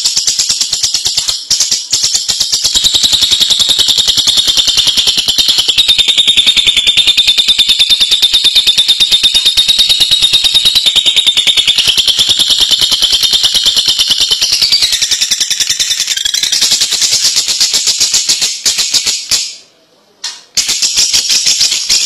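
A lovebird's ngekek: a long, unbroken, very rapid high-pitched chattering trill. It breaks off briefly near the end and starts again.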